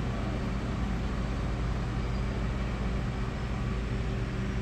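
A steady low mechanical hum with a few constant droning tones over an even hiss, unchanging throughout.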